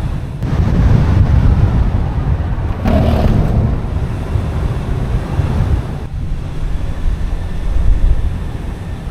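Wind buffeting the microphone over the low road rumble of a moving car, with a brief louder rush about three seconds in.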